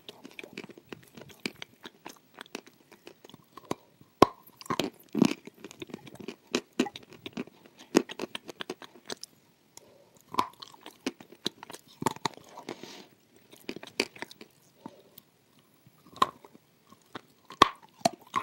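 Close-miked crunching and chewing of a dry lump of edible clay: crisp bites every few seconds, with a crumbly, clicking chew in between.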